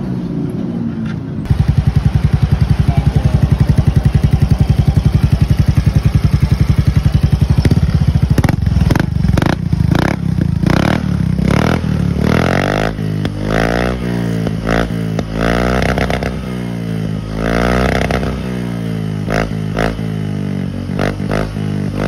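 Yamaha Fazzio's 125 cc single-cylinder scooter engine running through an Apido V4 aftermarket exhaust. It idles with an even putter, then from about eight seconds in is revved again and again, the pitch rising and falling with each blip of the throttle.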